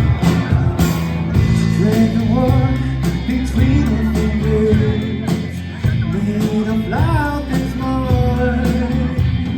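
Live rock band playing: electric guitar, bass and drums, with a lead vocal singing over them.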